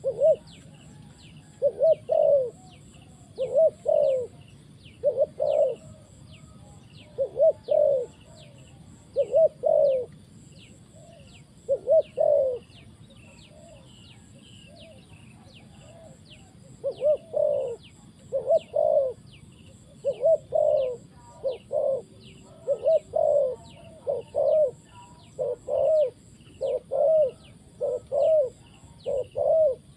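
Spotted dove cooing in short phrases of two or three low notes, one phrase every second or two, with a pause of a few seconds near the middle and the phrases coming closer together in the second half. A high, rapid chirping repeats about twice a second behind it.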